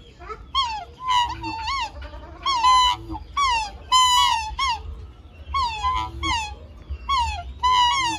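An animal's high, wavering cries, repeated in short bursts about once a second, several overlapping at a time.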